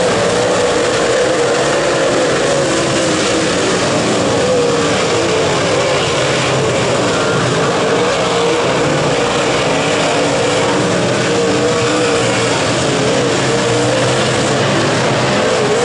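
Late model race cars' V8 engines running at racing speed, a loud steady drone whose pitch wavers up and down as the cars lift and accelerate around the track.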